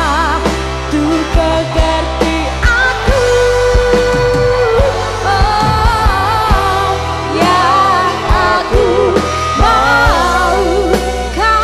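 Dangdut band playing live: steady bass, regular drum hits and a lead melody ornamented with vibrato, one note held for about a second and a half near the middle.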